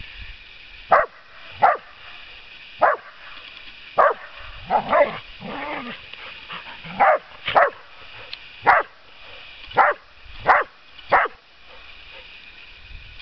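Dogs barking in play: about a dozen short, sharp barks at uneven intervals, with a lower, drawn-out sound in the middle.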